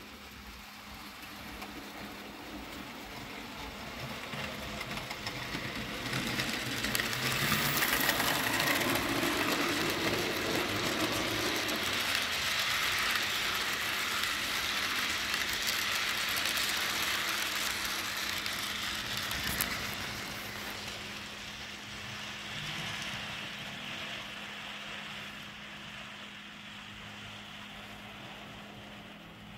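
Model passenger train rolling past on its track: a rumble of wheels on rail that builds over the first several seconds, is loudest as the cars pass close by, then fades as the train moves away. There is a single sharp click about twenty seconds in.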